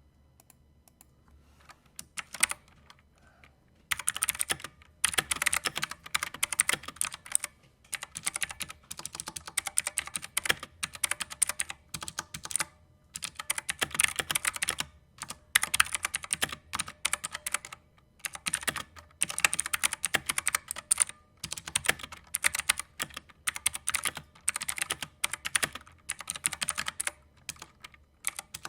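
Typing on a Redragon Kumara K552 tenkeyless mechanical keyboard: a few single keystrokes at first, then fast continuous typing from about four seconds in, in bursts with short pauses between them.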